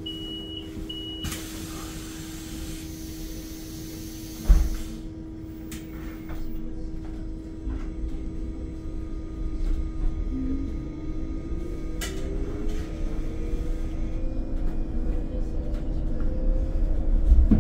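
Inside a Solaris Urbino 9 IV LE Electric city bus: two short door-warning beeps, then a hiss of air as the doors close, ending in a thump about four and a half seconds in. Over a steady hum, the electric drive's whine rises in pitch as the bus pulls away.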